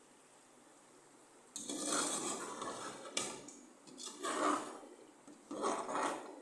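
A metal spoon stirring thick frying masala with meat pieces in a metal pot, scraping against the pot in three or four strokes, the first starting about a second and a half in.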